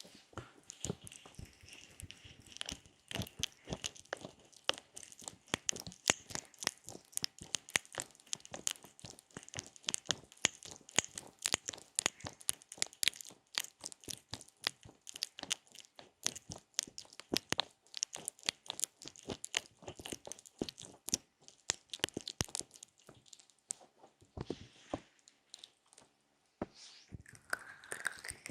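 Ear-massage ASMR: fingers rubbing, pressing and scratching on a microphone's ears, giving dense, irregular crackling and crunching close to the microphone.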